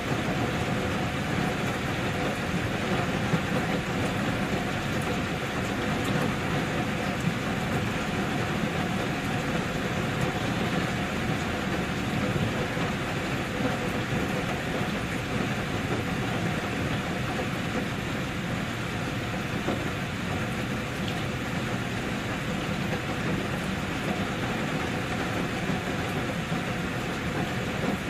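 Steady rain falling without a break, an even hiss with a faint steady hum beneath it.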